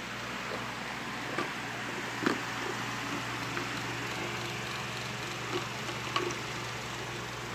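A man drinking from a plastic cup: a few short faint clicks and swallows, the loudest a little over two seconds in, over a steady background hum and hiss.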